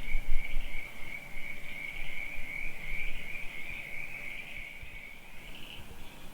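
Night chorus of crickets trilling steadily at a high pitch, with a second, pulsing trill just above it. A low rumble is loudest in the first second.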